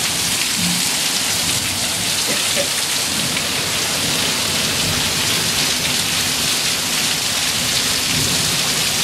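Rain pouring down steadily: a dense, even hiss of rainfall with no break in it.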